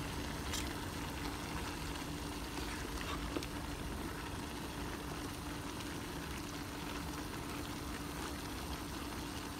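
Sliced pork and cabbage simmering and sizzling in a nonstick frying pan while a spatula stirs and turns them, with a few sharp clicks of the spatula against the pan in the first few seconds. A steady low hum runs underneath.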